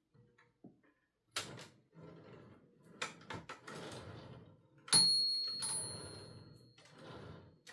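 Olivetti Linea 88 manual typewriter's carriage being slid and worked, with several mechanical clunks and stretches of sliding, rattling noise. About five seconds in, a sharp strike sets off a single bright ring that fades over about two seconds, like the typewriter's margin bell.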